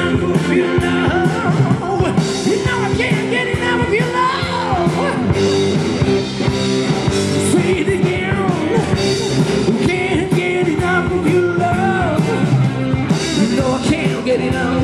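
Rock band playing live: a man singing lead over electric guitar, drums and keyboards.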